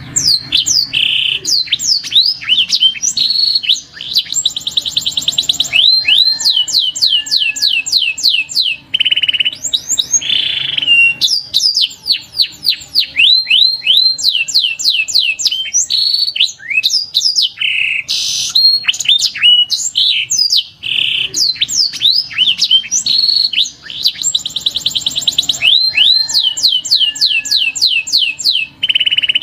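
Domestic canary singing: long phrases of fast trills, quick falling whistled sweeps and buzzy rolled notes, with brief pauses between phrases.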